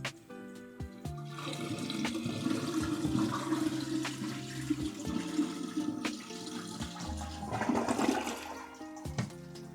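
Toilet flushing: water rushes from the tank into the bowl, starting about a second in and dying away near the end. It is a test flush of a toilet just fitted with a new flush valve. Background music plays under it.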